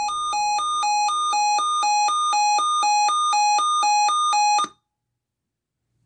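Weather alert radio's hurricane-watch alarm sounding: a high beep that flips back and forth between two pitches, growing steadily louder, then cutting off suddenly about three-quarters of the way through.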